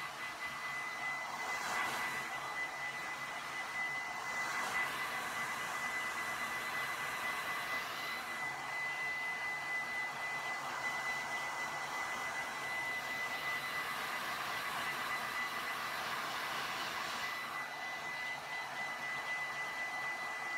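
Handheld hair dryer blowing steadily, with a thin high whine from its motor over the rush of air. The air noise swells and eases several times as the dryer moves about.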